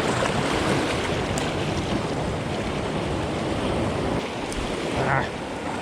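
Ocean swell surging over and through a rocky shoreline: a steady rush of surf.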